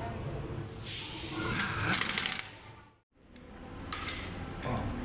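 Auto repair shop background noise: a steady hiss with indistinct clatter and faint voices, fading out to silence about three seconds in, then coming back as quieter office room noise with faint voices.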